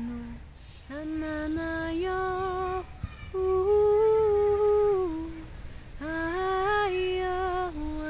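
A woman singing unaccompanied in 'light language', wordless syllables on long held notes that step up and down a little in pitch. There are three phrases with short breaths between them, and the middle one is the loudest.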